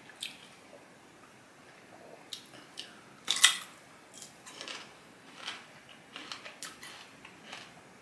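A crisp bite into a small green fruit about three and a half seconds in, followed by crunchy chewing, a run of small, irregular crunches.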